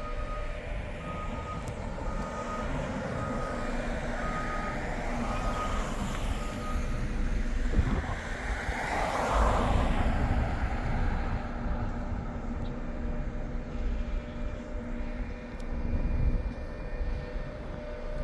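Backup alarm on heavy construction equipment beeping at about one beep a second, stopping about seven seconds in, over the steady low rumble of a diesel engine. A broader whooshing swell passes about nine seconds in.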